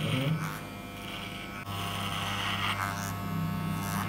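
Wahl electric hair clipper buzzing steadily as its blade cuts hair in a fade, with short repeated bursts of hiss as it passes through the hair. The buzz grows louder about a second and a half in.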